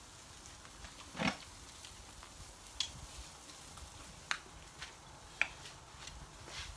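A person eating grilled shellfish off the shell: a few short, quiet mouth smacks and slurps scattered over several seconds, the fullest about a second in.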